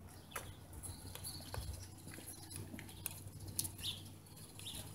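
Quiet outdoor ambience: scattered footsteps on pavement, with a few faint bird chirps near the end.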